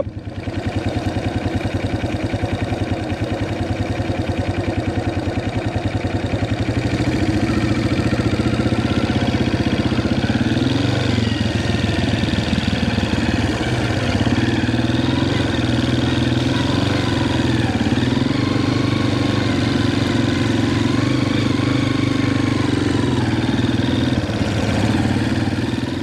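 Farm quad bike engine running steadily at low revs while being ridden slowly. The pitch dips and wanders briefly about ten seconds in, then holds steady again.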